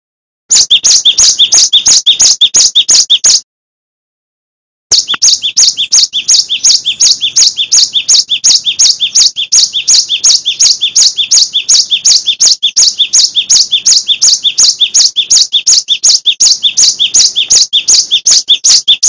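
Cinereous tit (gelatik batu) singing a fast, loud run of repeated two-part high notes, about five a second. The run breaks off after about three seconds, stops for about a second and a half, then resumes and runs on.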